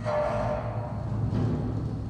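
Kinetic sound sculpture's motor-driven crank and rod working against a plywood wall, setting it sounding like a drum: a sudden boom with a ringing tone that fades, a weaker knock about a second and a half in, over a steady low rumble.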